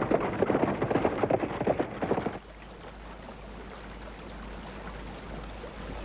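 Rattling rumble of a cartoon chariot's wheels and galloping hooves, which cuts off abruptly about two and a half seconds in. A faint, steady hiss follows.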